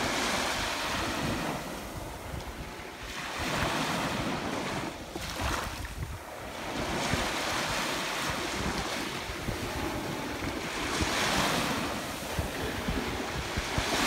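Small ocean waves breaking and washing up over the sand and shells of the beach, the surf swelling and fading in several surges. Wind buffets the microphone throughout.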